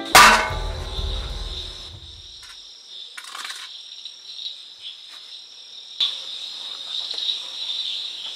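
A sudden deep boom hit, its low rumble dying away over about two seconds, then crickets chirring steadily through the night.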